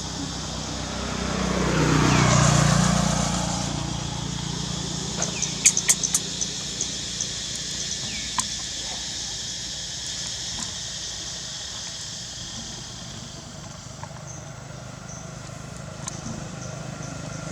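A motor vehicle passing by, its engine noise swelling and fading over about three seconds early on, followed by a handful of sharp clicks and short faint chirps over a steady outdoor background.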